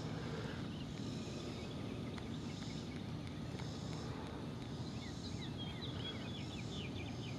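Quiet open-air lake ambience: a steady low background rumble, with faint bird chirps in the second half.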